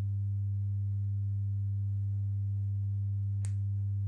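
Steady low electrical mains hum with a few fainter overtones, and a single short click about three and a half seconds in.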